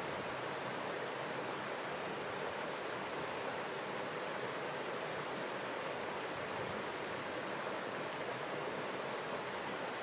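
Stream water running steadily in a continuous rushing wash, with a faint steady high-pitched tone above it.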